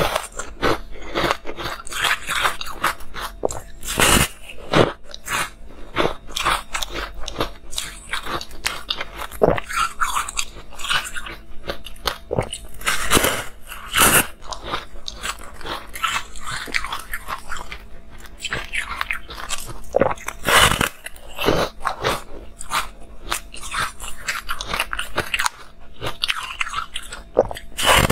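Crunching as bites are taken out of a porous, rainbow-coloured block of frozen ice and chewed: a dense run of crisp crunches, with a few much louder bites standing out, one about four seconds in, a pair near the middle and one about twenty seconds in.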